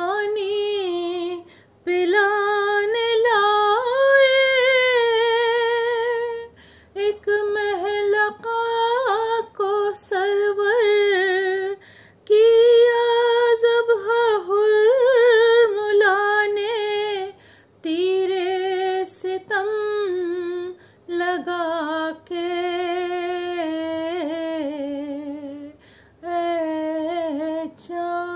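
A woman singing an Urdu salaam unaccompanied, in long melodic phrases of a few seconds each with wavering, ornamented held notes and short breaths between them.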